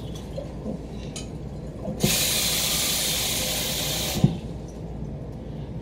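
Water running into a kitchen sink for about two seconds, starting and stopping abruptly, with a sharp click as it stops.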